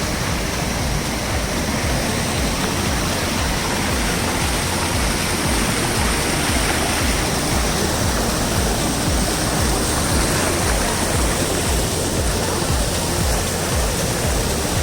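Rushing water of a forest stream or cascade: a loud, steady roar of noise with an uneven low rumble beneath it.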